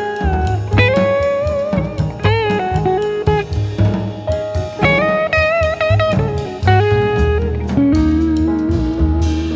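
Music: a lead guitar playing bent, sustained notes with vibrato over a drum kit beat, in a bluesy style.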